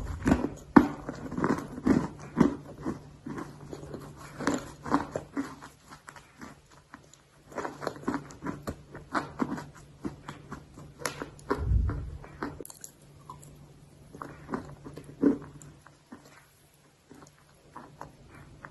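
A person biting and chewing dry clay close to the microphone: irregular crunches and clicks, dense at first and thinning out in the second half. There is a low thump about 12 seconds in.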